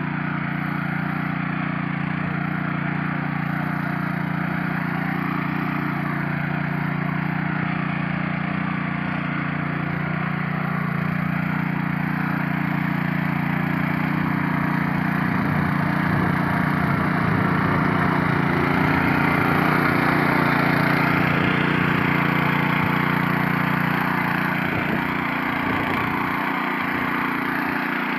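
Honda FQ650 power weeder's small four-stroke engine running steadily while its tines churn dry soil, growing a little louder for a few seconds in the middle.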